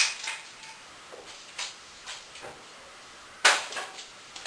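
A few sharp clinks and knocks from tools and metal parts being handled while a small engine is taken apart, the loudest about three and a half seconds in.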